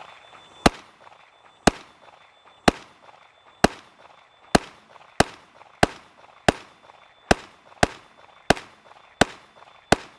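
Kriss Vector short-barreled rifle in 10mm firing 180-grain loads semi-automatically. It fires about thirteen single shots, roughly one a second at first and then a little quicker, each report followed by a short ringing echo. The string runs the magazine toward empty, so the bolt locks open.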